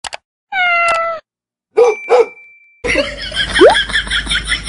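A mouse click, then a cat's meow lasting under a second and two short animal cries as cartoon sound effects. About three seconds in, a different sound takes over: quick repeated sounds about five a second, with one short rising squeak.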